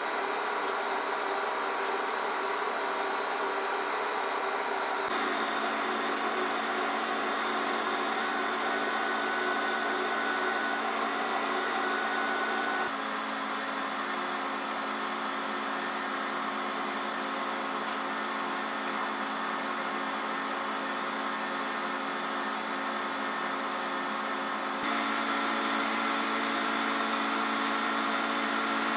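Steady machinery noise of a large engine room, a continuous rush with a low hum. Its pitch and level shift abruptly about five seconds in, again about thirteen seconds in, and once more near the end.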